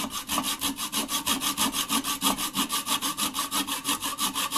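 Kobalt Japanese-style pull saw, whose teeth have little set, cutting small wooden tabs flush off a wooden floor-vent grill. It makes short, rapid rasping strokes, about five a second.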